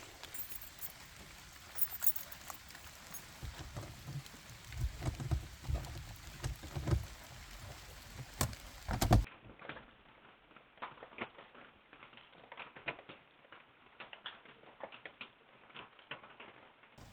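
Keys rattling, with thumps and knocks as the tent trailer's door is worked open. About nine seconds in, this gives way to light rain dripping on the hard-shell roof in scattered ticks.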